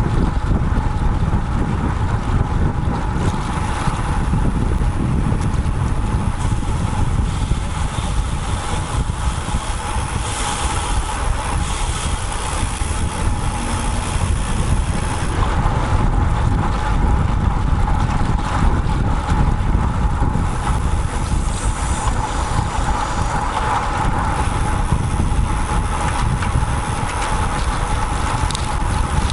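Wind buffeting the microphone of a bicycle-mounted action camera on a moving road bike, a steady rushing noise heaviest in the lows, with a thin steady tone running underneath.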